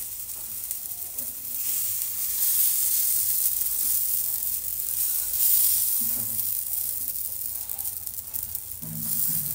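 Moong dal batter sizzling on a hot tawa as it is spread into a round with a spoon, a steady high hiss.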